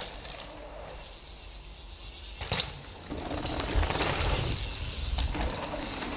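Mountain bike rolling fast over packed dirt: knobbly tyres hissing on the ground and the rear freehub ticking. The tyre noise gets louder from about three seconds in as the bike carves through a turn.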